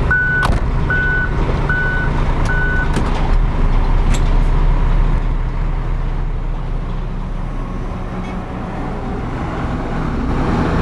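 Heavy truck's diesel engine running with a reversing alarm beeping steadily, about once every 0.8 seconds, until the beeping stops about three seconds in. A few short, sharp clicks or hisses sound over the engine in the first four seconds.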